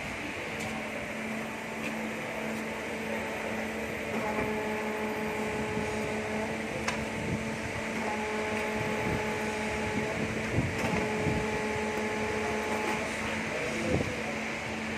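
Amera Seiki TC 3XL CNC lathe running with a steady hum. A higher motor whine sets in about four seconds in, drops out briefly a couple of times, and stops shortly before a single knock near the end.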